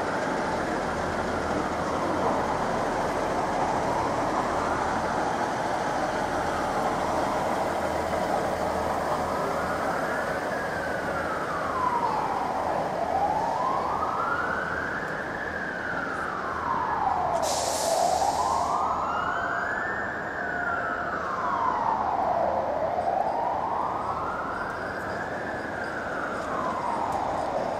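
An emergency vehicle's siren wailing, its pitch slowly rising and falling about every five seconds, over steady background noise. A short hiss cuts in briefly about two-thirds of the way through.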